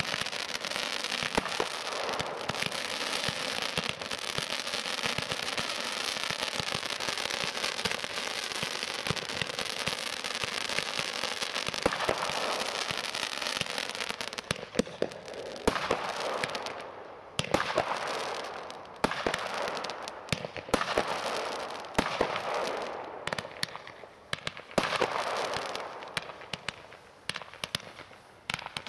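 Weco Power Tec PRO 300.1 automatic fireworks cake firing: a dense stream of hissing shots and crackling pops. About halfway in, it breaks into separate volleys a second or two long with short gaps between them.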